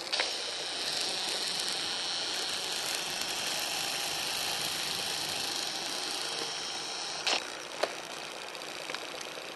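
Zoom motor of a Sony Cyber-shot DSC-HX7V compact camera whirring steadily as the lens zooms out, picked up through the camera's own microphone. It starts with a click and stops with a couple of sharp clicks about seven seconds in.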